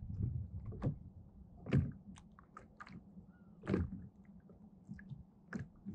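Soft knocks and thunks around a fishing kayak, about five of them at irregular intervals, over a faint low rumble of wind and water.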